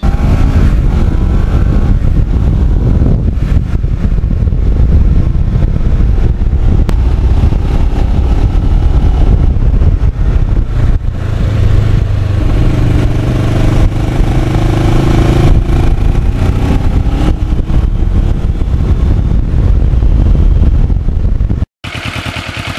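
Kawasaki Ninja 650R's parallel-twin engine running under way, under heavy wind buffeting on the microphone. About halfway through, its pitch rises as it accelerates. Near the end the sound cuts off abruptly, and a quieter, evenly pulsing engine sound follows.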